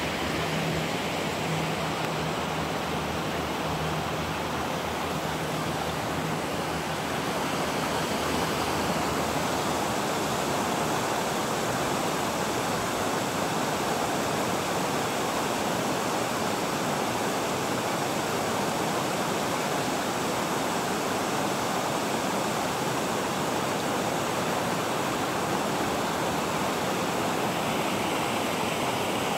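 Steady rushing of flowing water, an even unbroken noise like a weir or cascade on the river. A faint low hum sits under it for the first several seconds.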